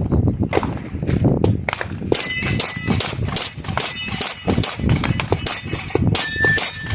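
Rapid pistol shots fired at falling-steel targets. From about two seconds in, the steel plates ring with a clang after the hits.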